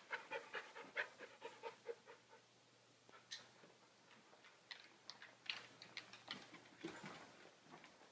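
Husky puppy panting quickly, about four breaths a second, for the first couple of seconds, then light scattered clicks and a knock about seven seconds in; all of it faint.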